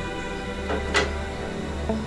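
Background music with sustained notes, and one sharp hit about a second in.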